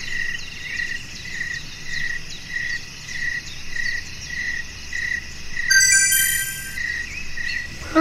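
Crickets chirping in an even rhythm, a little under two pulses a second, with faint higher chirps over them. About six seconds in comes a brief cluster of bright, high chiming tones.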